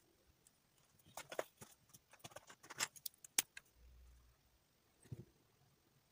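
Plastic felt-tip markers being handled and swapped: a run of small clicks and light clattering, with the sharpest click about three and a half seconds in, then a few soft taps near the end.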